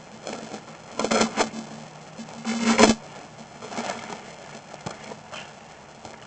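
Scraping and crackling over a faint steady hum from sewer inspection camera gear, with two louder bursts about a second in and just before three seconds, then smaller ones.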